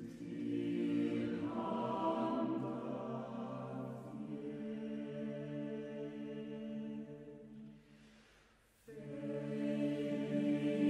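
Chamber choir singing a cappella, holding long sustained chords. The sound fades away to a near-silent breath of a pause about eight seconds in, then the voices come back in together about a second later.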